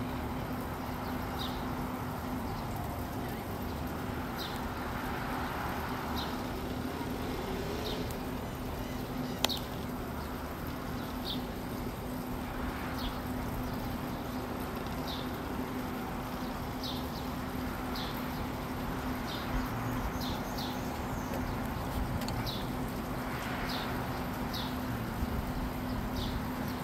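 Short high bird chirps repeating every second or two over a steady low hum and background noise, with one sharp click about nine seconds in.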